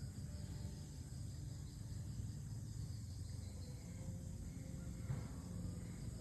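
Insects chirring steadily over a low rumble, with a single faint click about five seconds in.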